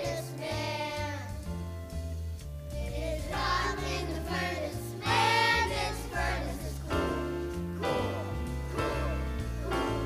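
Children singing a song over instrumental accompaniment, with a bass line moving from note to note beneath the voices.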